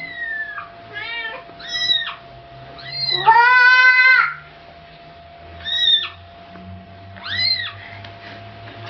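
Domestic cat meowing repeatedly, about six meows of varying length; the longest and loudest comes about three seconds in.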